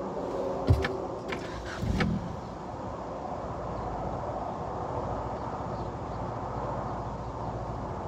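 Clicks and a sharp thump in the cabin, then the 2013 Dodge Journey's engine catches about two seconds in and runs steadily at idle. It is being started for the cam/crank relearn after a new crank sensor was fitted.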